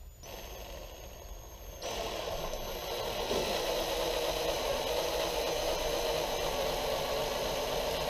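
Power drill running, with a high whine. Just under two seconds in it gets louder and rougher as the 11/64-inch bit bites in, drilling a pilot hole through the hollow synthetic rifle stock and the wooden dowel set inside it.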